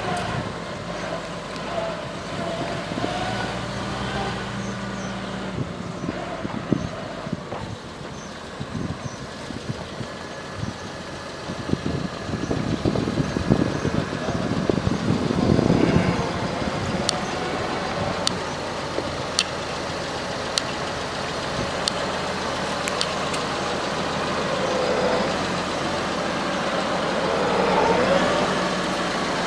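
Valtra farm tractor's diesel engine running as the tractor drives and manoeuvres across a gravel farmyard, passing close by near the end.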